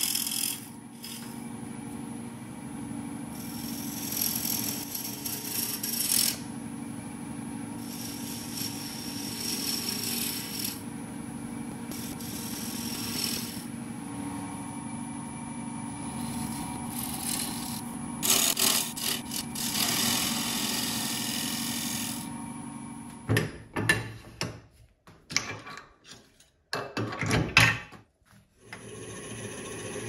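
Wood lathe running with a steady motor hum while a hand-held turning tool cuts a spinning maple-and-epoxy resin blank, the hiss and scrape of the cut coming and going in passes of a few seconds. Near the end the sound turns choppy, broken by short gaps.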